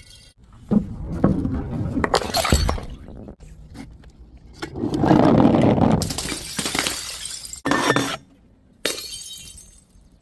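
Glass bottles breaking and shattering, several separate crashes one after another with crunching and tinkling of broken glass; the longest and loudest crash comes about halfway through.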